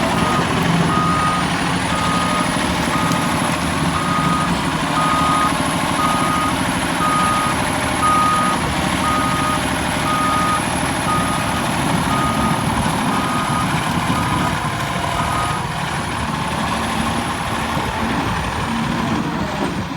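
Cat 336 hydraulic excavator running with its travel alarm beeping about once a second over the engine, the sign that the machine is tracking; the beeping stops about three-quarters of the way through while the engine runs on.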